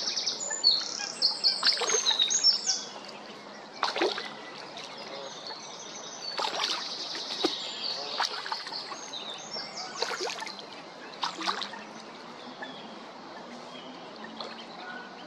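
Mallard ducklings diving and surfacing, making short splashes in the water every second or two. High bird chirps come through in the first few seconds.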